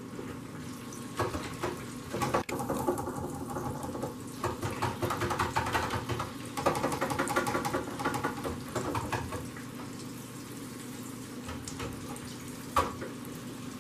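Shrimp deep-frying in a countertop electric deep fryer: the hot oil bubbles and crackles steadily, with a sharp click near the end.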